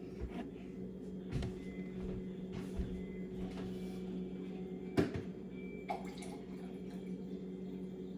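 Warm water poured into a mixing bowl of flour, over a steady low hum, with a couple of sharp knocks from the bowl and utensils.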